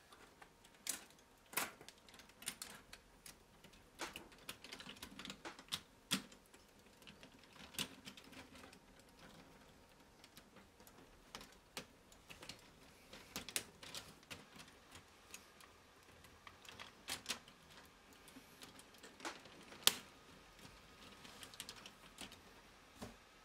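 Lego Technic plastic parts clicking and snapping as hands fit and press panels and track pieces onto a model tank's hull, with irregular sharp clicks and lighter rattling in between.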